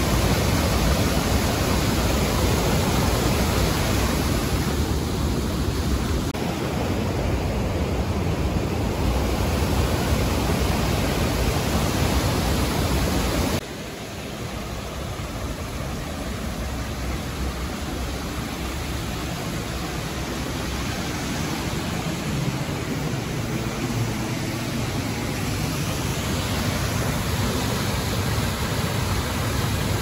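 Mountain creek water rushing, a steady dense hiss. About halfway through it drops abruptly to a quieter, still steady rush.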